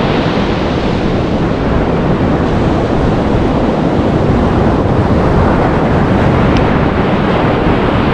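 Steady rushing of wind buffeting the microphone, mixed with the wash of surf.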